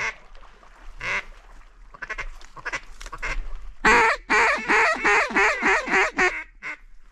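Waterfowl calling with honks and quacks: scattered single calls, then about four seconds in a loud, rapid run of about nine calls lasting a little over two seconds.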